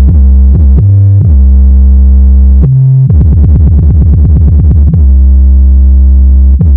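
Bass-heavy electronic music played loudly through a subwoofer from an amplifier under test: long held synth bass notes that change pitch, with a fast-pulsing stretch in the middle. It stops shortly before the end.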